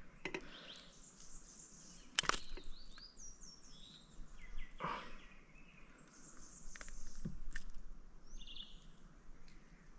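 Birds calling: short high chirps and a quick falling run of notes, with an insect-like high hiss for a second or so later on. A few sharp knocks are mixed in, the loudest about two seconds in.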